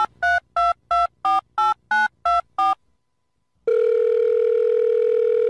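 Telephone keypad tones: about nine quick two-tone beeps, a different pair of pitches for each key, about three a second. After a short pause comes a steady telephone tone lasting about two seconds.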